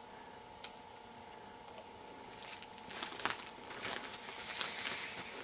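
Footsteps crunching through dry leaf litter and twigs, starting about two seconds in and growing louder, after a single faint click.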